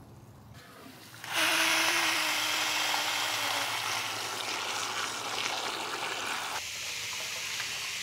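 Water from a garden hose pouring onto rocks and into a hollow stone fountain column, filling its reservoir; a steady hiss that starts suddenly about a second in and eases a little near the end.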